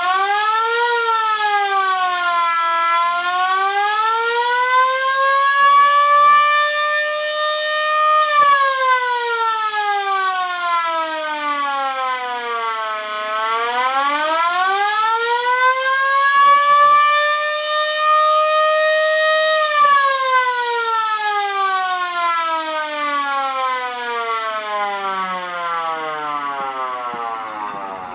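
Air raid siren wailing: its pitch climbs, dips briefly, climbs and holds high, falls, then climbs and holds again before winding down slowly near the end.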